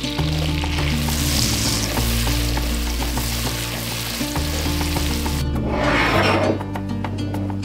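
Sliced leeks sizzling in hot butter in an enameled cast-iron pot while being stirred with a spatula. The sizzle cuts out about five and a half seconds in, followed by a short whoosh and background music with a regular beat.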